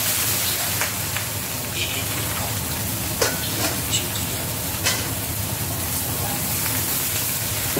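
Taro stems sizzling in hot oil in a stainless-steel wok as they are stir-fried, with a metal spatula clinking against the wok now and then.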